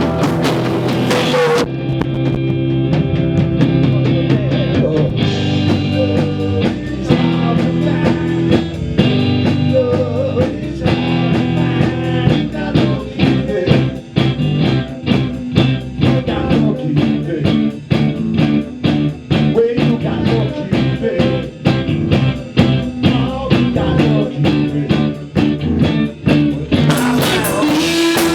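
Blues-rock band playing an instrumental break. After about two seconds the cymbals drop out, leaving electric guitar lines with bent notes over bass. The full band with cymbals crashes back in near the end.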